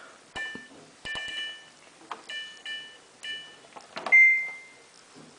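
Samsung WF8804RPA washing machine control panel beeping as its buttons are pressed in service mode: a series of short chirps with a few clicks. About four seconds in comes one louder, longer single beep.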